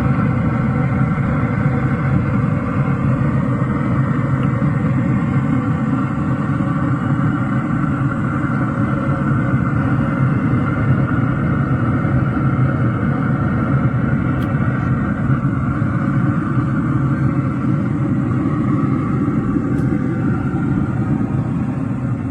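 A loud, steady low mechanical rumble with a constant hum, unchanging throughout.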